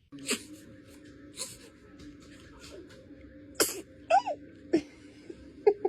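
A baby sneezing several times in short, sharp bursts, the loudest about three and a half seconds in, followed by a brief high little vocal sound that rises and falls.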